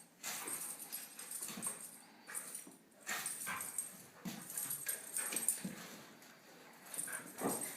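Two dogs, an Australian Shepherd puppy and a Bernese Mountain Dog, play-fighting: whimpers and scuffling noises in irregular short bursts.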